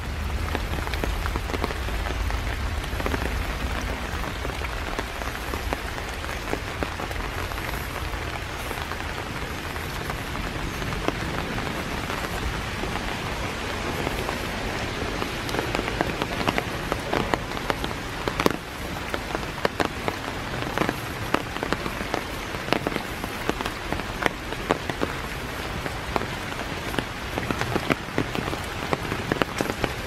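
Steady rain falling through trees onto leaves and a path, with many sharp drips and taps from drops landing close by. A low rumble sits under it for the first few seconds.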